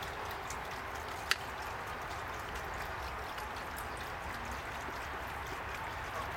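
Steady hiss of background noise, with a single sharp click about a second in as tin snips work at a rubber garden hose.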